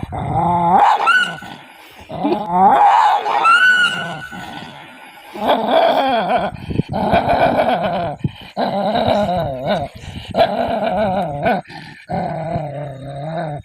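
A dog vocalizing. Two rising, howl-like cries come in the first few seconds, followed by several long, wavering growling whines with short breaks between them.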